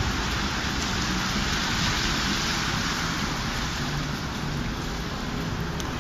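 Steady hiss of wet snow falling on a wet city street, with a low, uneven rumble of traffic underneath.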